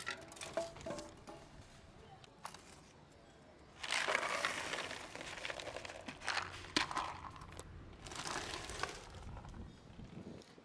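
Dry cat kibble poured from a plastic tub onto a plastic plate: a rattling rush of pellets about four seconds in, then scattered clicks and a second shorter rattle.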